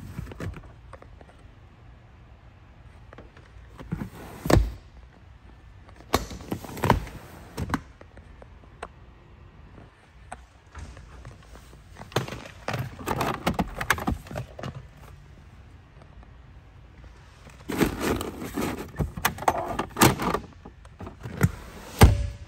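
A series of scattered knocks, clicks and thunks with rustling in between, from the car's rear seats and trunk trim being handled; the loudest thunk comes near the end.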